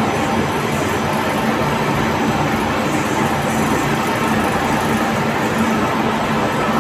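Steady machinery noise from a running snack-food production line, conveyors and dryer together, with a low hum under an even din.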